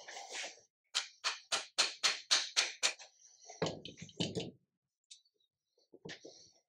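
Parts of a Bosch alternator knocking together as it is reassembled: a run of about eight quick, evenly spaced metallic taps, then two heavier knocks, and a few light clicks near the end.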